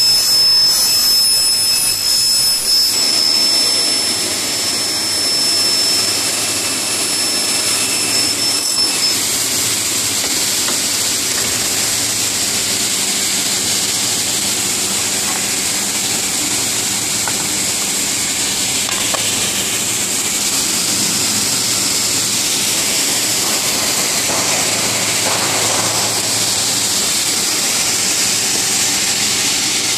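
Double-head cutting saw for uPVC window profiles running, with a loud, steady whine and hiss from its saw motors and blades. The high whine drops out about nine seconds in, leaving an even rushing hiss.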